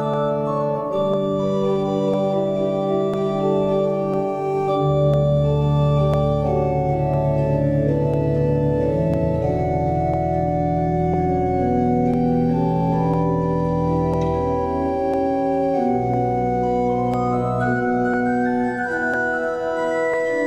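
Organ playing slow, sustained chords, with a deep bass entering about five seconds in and dropping out around sixteen seconds.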